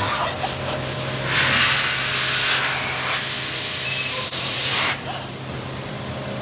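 The sanding robot's pneumatic sander stops right at the start. Then compressed air hisses in two bursts of about a second and a half each, over a steady low machinery hum.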